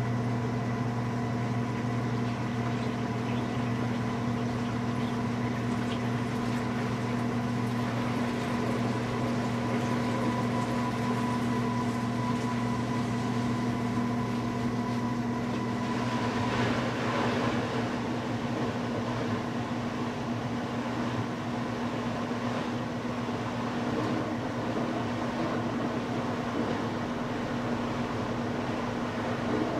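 2003 Maytag Performa top-load washer in its spin cycle: a steady motor hum with the belt drive and inner tub running quietly. A little past halfway, a rougher rushing layer joins the hum.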